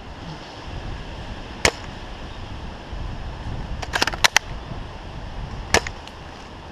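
Sharp, short cracks of airsoft play: one, then a quick run of about five near the middle, then another, over low rustling and handling of a rifle as the player moves among trees.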